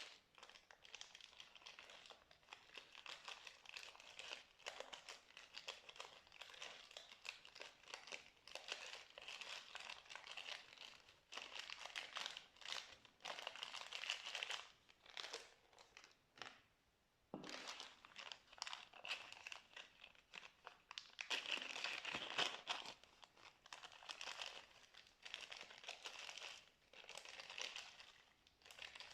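Slime being squished and kneaded by hand, a steady run of small wet crackles and clicks, with a brief pause a little over halfway through.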